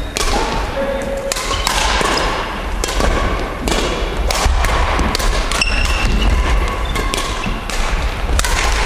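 Badminton rackets hitting a shuttlecock back and forth in a doubles rally: sharp, irregularly spaced hits mixed with footfalls on a wooden sports-hall floor, over a steady low hum.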